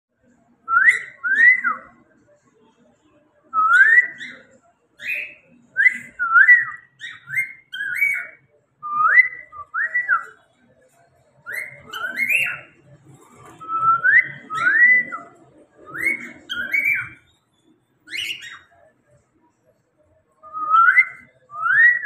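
Cockatiel whistling: a string of short rising whistled notes, mostly in pairs or quick runs, broken by pauses of a second or two.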